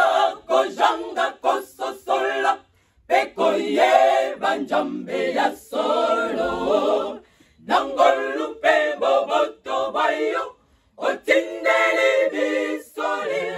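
Women's choir singing a cappella, in phrases broken by brief pauses.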